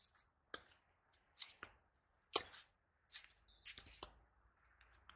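Tennis ball being struck by racquets and bouncing on a hard court during a rally: a series of short, sharp pops spaced irregularly, about six in all.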